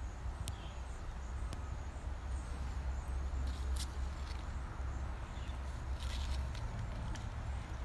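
Low, uneven rumble of wind buffeting the microphone outdoors, with a few faint brief higher sounds.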